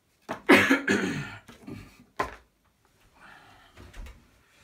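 A man coughing into his hand: a long bout about half a second in, then one short cough about two seconds in.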